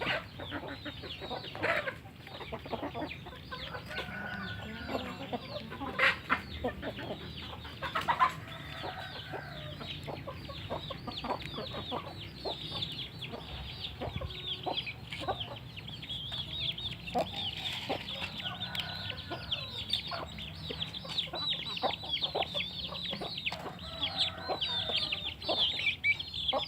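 Chickens clucking while feeding on scattered rice, over a constant stream of short, high peeping calls, with a few sharper louder calls or pecks in the first third.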